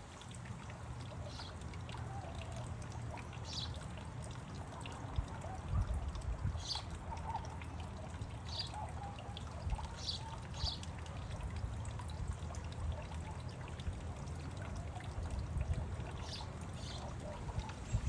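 Small fountain birdbath's water bubbling up through the top terracotta pot and trickling steadily into the basin, with a few short high chirps now and then.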